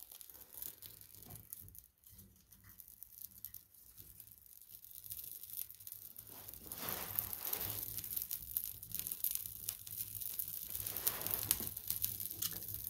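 Bark and split kindling catching fire in an open cast-iron wood stove: a dense crackling with a hiss, growing louder over the first several seconds as the flames build.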